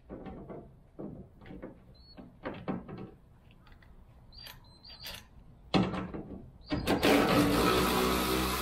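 Clicks and knocks of a tool against metal fittings, then a cordless drill with an 8 mm socket running steadily from about seven seconds in, backing out a light-housing bolt.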